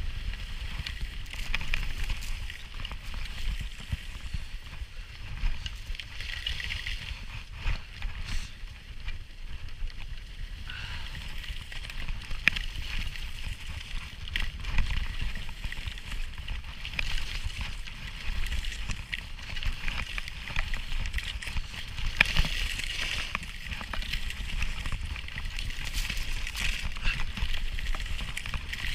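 Skis sliding and carving down groomed snow: a steady scraping hiss that swells and fades with each turn, over a low rumble of wind buffeting the microphone.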